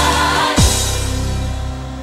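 Background music: a deep drum hit about half a second in, then held notes that slowly fade.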